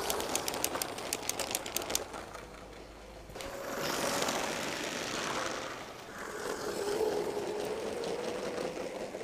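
Motorized LEGO trains on plastic track. For the first two seconds the wheels click rhythmically over the track joints, about six clicks a second. Then the motor's whine and the rumble of the wheels swell and fade twice as the trains pass close by.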